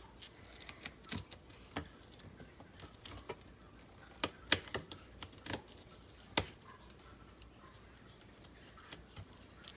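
Irregular light clicks and taps of paper, plastic and a loose spiral binding being handled, with the sharpest clicks about four and a half and six and a half seconds in.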